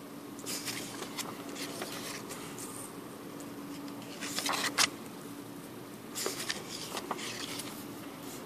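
Paper banknotes (Serbian dinar notes) rustling and sliding on a wooden tabletop as they are picked up, turned over and laid down, in short crinkling bursts, the loudest about four and a half seconds in. A faint steady hum runs underneath.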